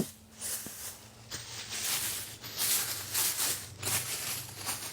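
A click, then a run of repeated rustling rubs about once every half second to second: rubber work gloves being rubbed and wiped clean.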